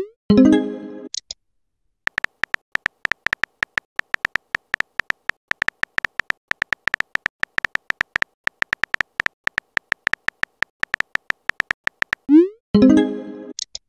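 Rapid synthetic keyboard typing clicks from a texting-story app as a message is typed out. Near the start and again near the end, a short rising swoosh is followed by a chiming message tone as a chat bubble is sent or appears.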